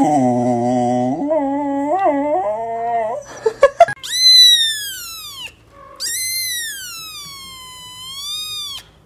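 A dog howling in a drawn-out, wavering 'singing' voice for about three seconds. After a few sharp clicks, a kitten gives two long, high-pitched meows that rise and then slide down in pitch, the second one longer.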